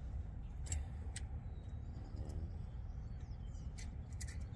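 A few sharp metallic clicks from a threaded caliper piston wind-back tool being turned to push the rear brake caliper piston back in, over a steady low rumble. Faint bird chirps come in now and then.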